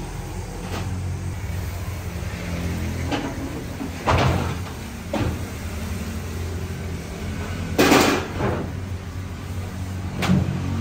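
Woven flour sacks being emptied and shaken out into a large steel dough-mixer bowl: four sudden knocks and rustles, the loudest about four and eight seconds in. A steady low machine hum runs underneath.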